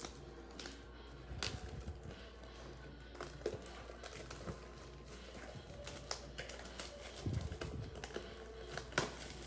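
Plastic shrink-wrap and packaging of a sealed Obsidian Football trading-card hobby box crinkling and tearing as the box is opened: scattered faint crackles and rustles, with a couple of soft bumps of handling.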